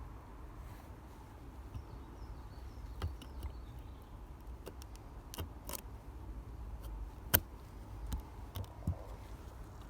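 A few sharp clicks and taps of a glass panel being handled against a phone frame, as a new iPhone XS rear glass is test-fitted; the loudest tap comes about seven seconds in, over a low steady hum.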